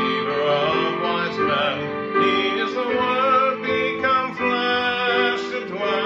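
A man singing over chords played on a Casio electronic keyboard, the voice wavering on its held notes.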